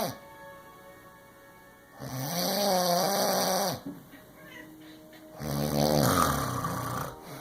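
Loud snoring: two snores about three and a half seconds apart, each lasting a second and a half to two seconds, with a whiny, wavering pitched tone; the second also has a deeper rattle underneath.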